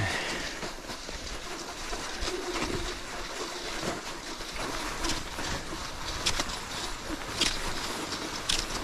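Cross-country skis sliding in groomed snow tracks, a steady hiss, with sharp ski-pole plants in the snow about once a second in the second half.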